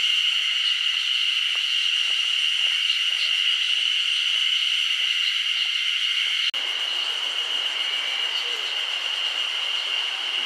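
A steady, high-pitched chorus of early-summer cicadas singing together in the forest. About six seconds in, a lower rushing noise joins beneath it.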